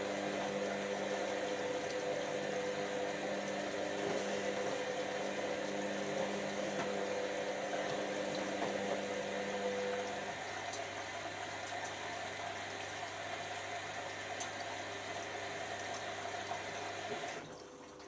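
Hotpoint First Edition HV5L125 washing machine running, with water rushing through it over a steady hum. A higher drone stops about ten seconds in, and the sound drops away near the end.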